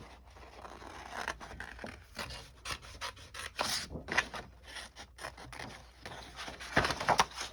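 Small craft scissors snipping through paper in short, irregular cuts while fussy cutting around a small printed butterfly, with a louder cluster of snips near the end.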